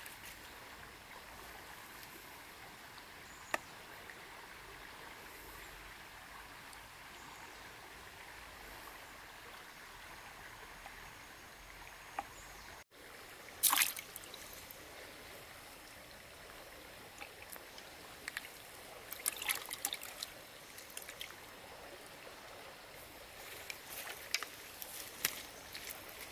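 Steady sound of flowing river water. In the second half come several short, sharp splashes and knocks, the loudest soon after the middle and more in clusters near the end.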